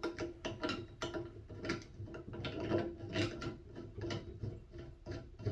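A printer-bracket clamp being worked by hand on a metal stand pole, its threaded metal piece screwed in: a run of small, irregular mechanical clicks and rattles, a few a second.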